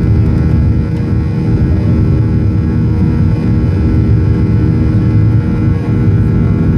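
Jet airliner's engines and airflow heard inside the passenger cabin during the climb after takeoff: a loud, steady low drone with several steady humming tones over it.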